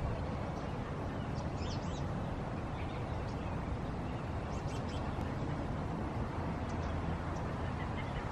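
Steady low outdoor rumble, with a few short, high bird chirps scattered through it.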